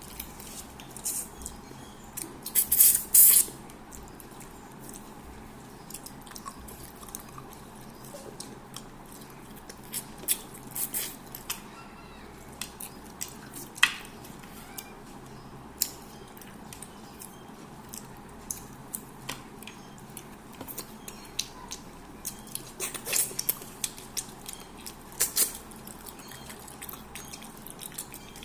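Close-up eating sounds of a person eating fish head curry with rice: scattered mouth smacks, chewing and small clicks, with the loudest cluster about three seconds in.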